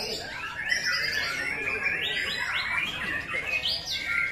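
White-rumped shama (murai batu) singing a fast, continuous, varied song of quick whistles, glides and chattering notes.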